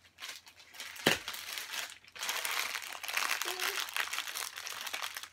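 Plastic packaging bag crinkling as it is handled, with one sharp click about a second in; the crinkling grows steadier and louder from about two seconds in.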